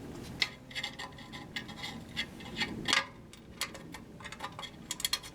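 Scattered metal clicks and clinks of bolts, nuts and a wrench being handled while fitting a bandsaw fence rail, with a quicker run of clicks near the end.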